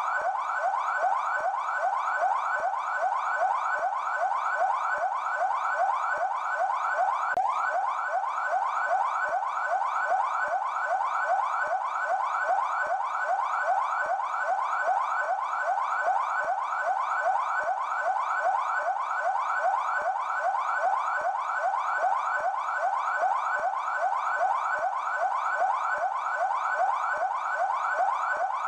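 PMESP (São Paulo Military Police) police car siren sounding its yelp tone: a fast wail that sweeps up again and again, several times a second, without pause.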